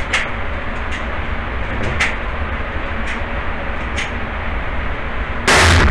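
Motorised target carrier at an indoor shooting range running steadily as it brings the paper target back, with sharp gunshots from other lanes about once a second and one much louder, longer blast near the end.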